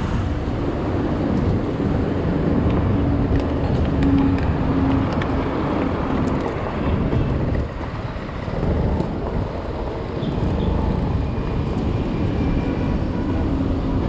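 Scooter engine running at low speed while the scooter rolls slowly into a gravel lot, over a heavy low rumble; the engine tone drops away briefly about halfway through, then returns.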